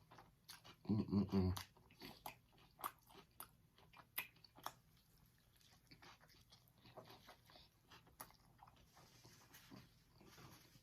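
A person chewing and biting into a homemade double cheeseburger, with many small, sharp, wet mouth clicks. A short hum from the eater about a second in is the loudest sound.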